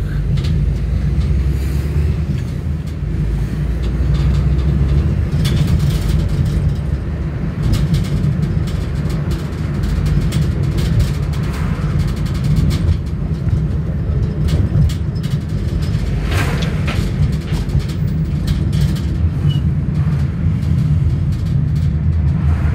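Steady low rumble of a car's engine and tyres on the road, heard from inside the moving car, with occasional small knocks.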